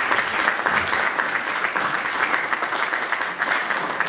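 Audience applauding: a steady spread of many hands clapping.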